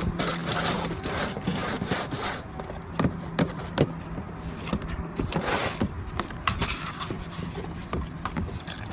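Irregular scraping and rubbing with scattered light knocks, like things being handled and stirred clumsily, over a faint steady hum.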